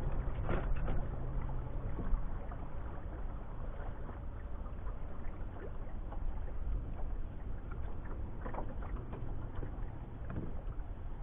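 Small fishing boat on a lake: water washing against the hull over a faint low motor hum, with a few light knocks.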